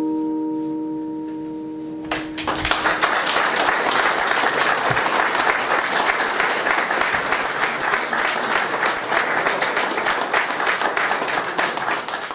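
A vibraphone's last chord ringing and fading, stopped about two seconds in, then a crowd applauding steadily.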